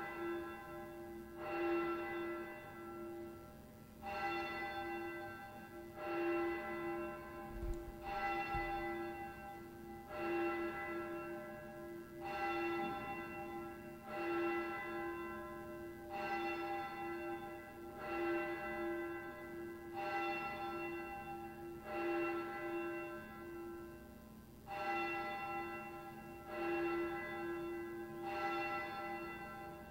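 A single church bell tolled steadily, one stroke about every two seconds, each stroke ringing on and fading until the next.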